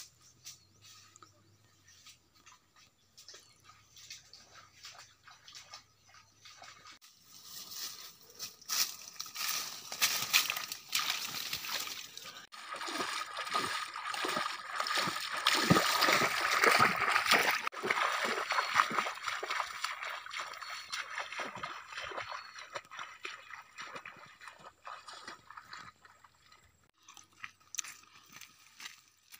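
Footsteps wading through shallow water: a run of irregular sloshes and splashes that builds about eight seconds in, is loudest in the middle and fades away near the end.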